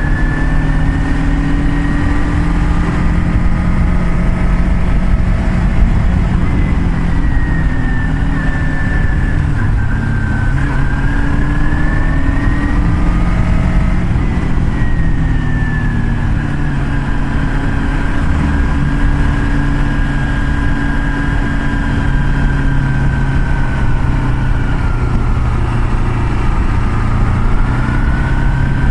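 Car engine and road noise heard from inside the moving car, steady, with the engine's pitch slowly rising and falling as the speed changes.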